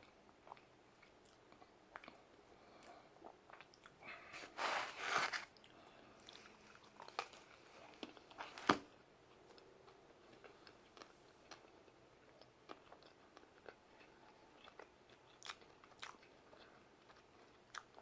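A man chewing and biting into pizza close to the microphone: soft, scattered mouth clicks and smacks, with a noisier stretch about four seconds in and one sharp click about halfway through, the loudest sound.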